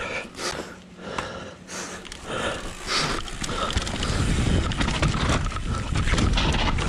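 Mountain bike riding down a bare rock slab: knobby tyres rolling and the bike rattling and clicking over the rock, with a low rumble growing louder from about halfway as speed builds.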